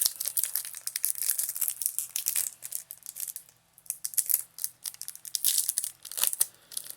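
Foil wrapper of a Pokémon booster pack crinkling and tearing in irregular crackles as it is worked open by hand, with a brief lull about halfway through.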